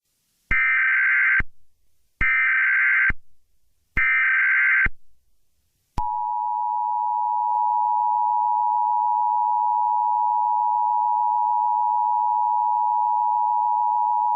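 Emergency Alert System header: three short bursts of warbling digital data tones, about a second each, then the steady two-tone EAS attention signal, held for about eight seconds before it cuts off. It marks an emergency alert message about to begin.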